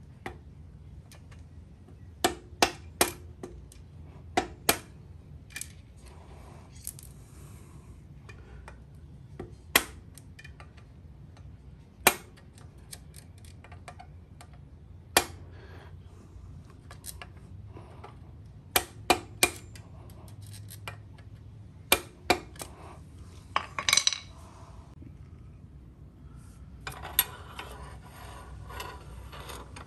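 Hammer tapping the end of a screwdriver held as a punch, sharp metallic clinks at irregular intervals, some in quick runs of two or three, with a brief rattle of rapid taps about two-thirds of the way in.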